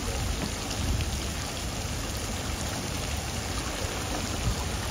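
Steady hiss of moving pool water, like light rain, with an uneven low rumble of wind on the microphone underneath.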